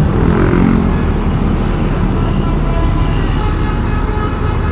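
Motorcycle riding in road traffic: steady low engine and wind rumble on the rider's microphone, with an engine note sliding down in pitch in the first second.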